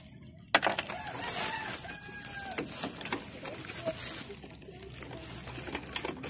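Sharp metal clicks and knocks of a socket wrench and extension working the screw bolts of an idle air control valve, the loudest click about half a second in. A rooster crows in the background.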